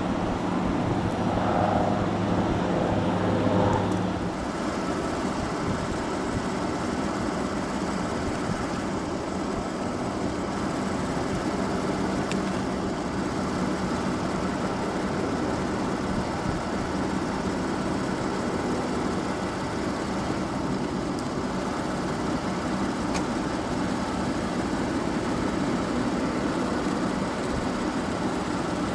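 Steady running noise of a motor vehicle, with a low steady hum through it that is strongest in the first four seconds.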